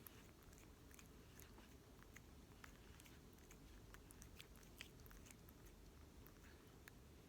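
Near silence: faint room tone with scattered soft, irregular clicks.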